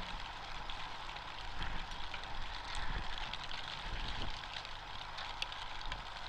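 Outdoor weather noise: a steady hiss of wind and rain with soft low gusts swelling now and then.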